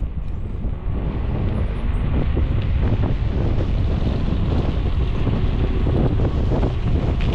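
Wind buffeting the microphone while riding, a dense low rumble that grows louder over the first second or two and then holds steady.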